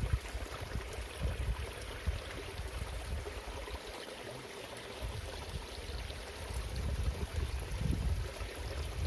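Water flowing in a ditch, a steady rushing hiss, with low rumbling gusts of wind on the microphone that pick up near the end.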